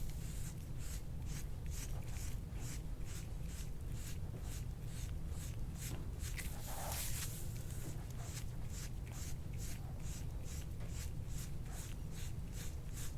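Steel-edged soft-tissue scraping tool stroked quickly and repeatedly over the skin of a back, a rhythmic scratchy rasp at about two strokes a second, with one louder rush about seven seconds in. A steady low hum runs underneath.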